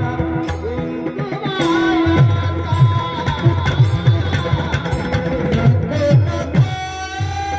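Marathi devotional singing: a male voice sings in a high register over repeated mridang drum strokes. Near the end a long steady note is held.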